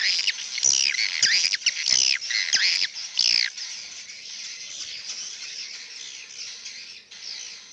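Many swiftlets calling inside a swiftlet house: a dense chatter of high chirps and swooping calls, with a few sharp clicks, loudest and most crowded in the first three and a half seconds, then settling to a thinner, steady twittering.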